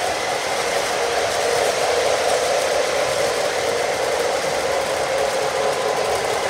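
O-scale model trains running on the layout: a steady rumble of wheels on the track and the locomotives' motors.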